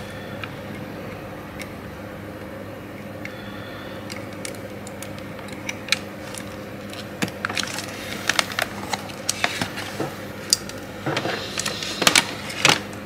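Small scattered clicks and taps of a hand tool and fingers on a laptop motherboard as the CMOS battery connector is unplugged to reset the BIOS, coming more thickly in the last few seconds, over a faint steady hum.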